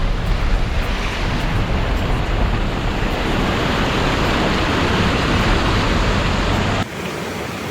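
Steady rushing roar of a waterfall, cutting off abruptly near the end.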